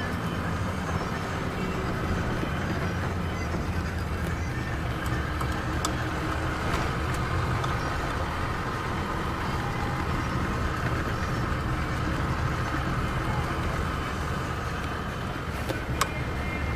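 Car running steadily along a paved road, engine and tyre noise heard from inside the cabin, with a couple of light clicks.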